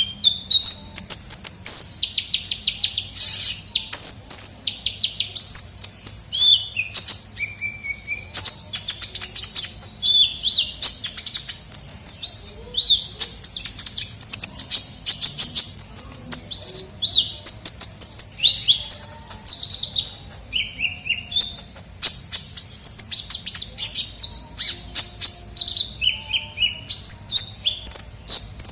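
Kolibri ninja (Van Hasselt's sunbird) singing a fast, high-pitched twittering song without pause: rapid trills mixed with short down-slurred notes.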